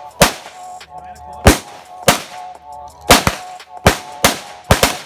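Handgun fired about nine times at an uneven pace, one trigger pull at a time, with a couple of shots in quick pairs near the middle and end. Faint background music plays under the shots.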